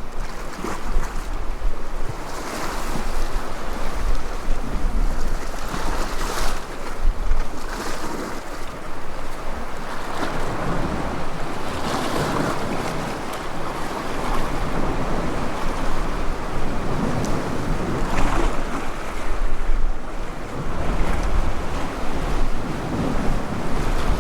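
Sea waves washing in, swelling and easing every few seconds, with wind buffeting the microphone as a low rumble.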